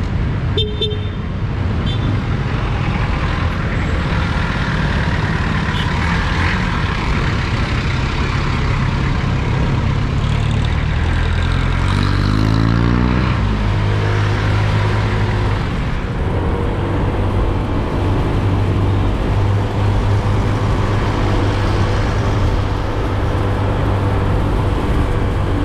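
Motorcycle engine running under way, with wind rushing past. Past the middle the revs climb for about two seconds, then drop suddenly as it shifts up, and it settles back to a steady cruise.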